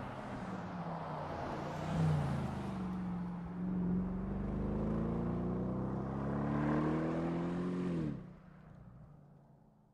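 Bentley Continental V8 S Convertible's twin-turbo V8 engine accelerating, its note climbing steadily for several seconds, then falling away sharply just after eight seconds in as the throttle is lifted.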